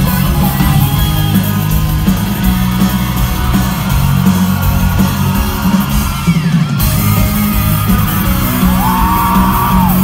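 Loud live Vocaloid electropop played by a band with synthesized singing through a concert hall's PA, heard from inside the crowd, with fans yelling along. The top end drops out briefly about six seconds in, then the full mix returns.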